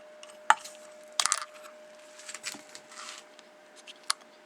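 Metal suspension parts being handled and tried into place: a sharp click, a quick cluster of knocks, a scraping rustle and another click, over a faint steady hum.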